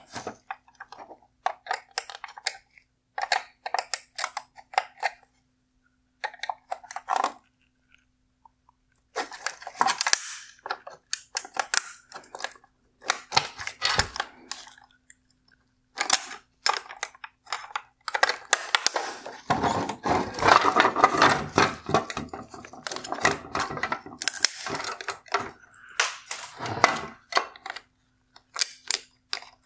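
Hard plastic parts of a Tesla Model 3 LED tail light being handled and pulled apart: scattered clicks, taps and scrapes, with a busier stretch of scraping and clattering about two-thirds of the way through.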